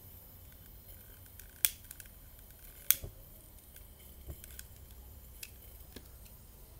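Long-nosed butane lighter's trigger clicking sharply twice, about a second apart, to light a new lantern mantle for its first burn-off, followed by a few faint ticks.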